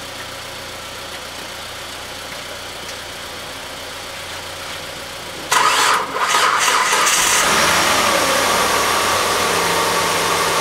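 A 2000 Hyundai Sonata engine, jump-started with a freshly replaced alternator, cranks about five and a half seconds in, catches and runs, its revs falling and settling toward idle. A steady low hum comes before the start.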